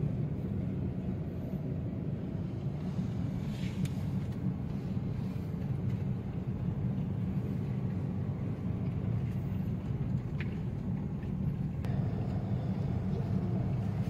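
Steady low rumble of a Honda car's engine and tyres heard inside the cabin while driving.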